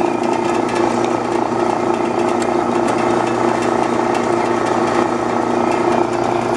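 Dayton metal-cutting bandsaw running steadily, a loud even hum with several steady tones from the motor, drive and moving blade. The blade is tracking about 1/8 inch off on the bottom wheel, the fault that makes it pop off.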